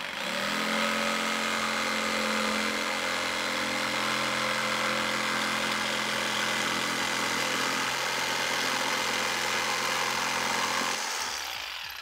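An old corded XU1 jigsaw with a fine-tooth blade cutting through a 3 mm polycarbonate sheet: the motor runs at a steady speed while the blade rasps through the plastic. It stops about a second before the end.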